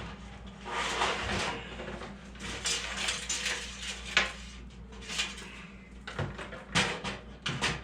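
Clattering, scraping and sharp metallic clicks of a motherboard being pushed and shifted into a computer case, knocking against the case at irregular moments while it refuses to line up.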